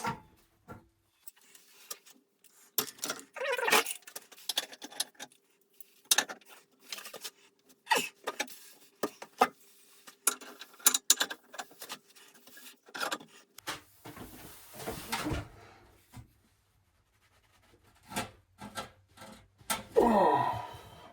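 Hands and tools working a tight threaded pipe fitting loose: irregular clicks, knocks and rattles of metal and plastic. There is a longer scraping rasp about two-thirds of the way through.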